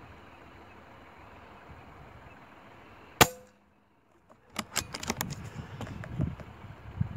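A single sharp shot from a PCP air rifle about three seconds in, with a brief ring after it. After a short silent gap, a scatter of irregular clicks and knocks over a low rumble.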